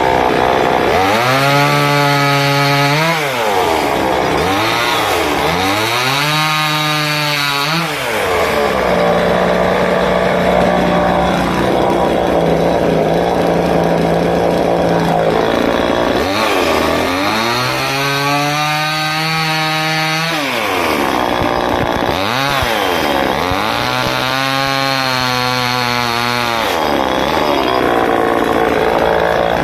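Two-stroke chainsaw repeatedly revving up and dropping back, with a stretch of steady high-speed running in the middle while it cuts into wood.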